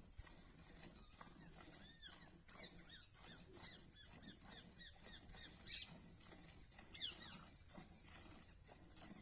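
Small birds chirping in quick, repeated runs of short, high chirps that rise and fall in pitch, loudest about six and seven seconds in.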